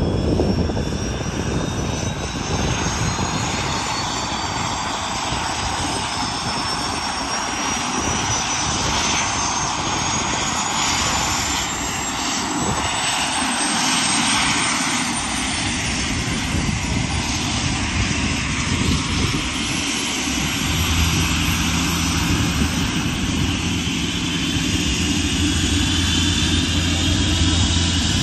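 Airbus EC120B Colibri's Turbomeca Arrius 2F turboshaft starting up: a high whine climbs steadily in pitch over about fifteen seconds as the engine spools up and the main rotor begins to turn. About two-thirds of the way through, a steady low drone sets in under the whine.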